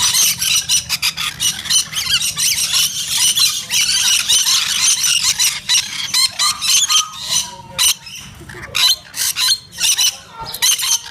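A flock of birds squawking and screeching, many shrill calls overlapping in a dense chatter that thins out with short gaps in the second half.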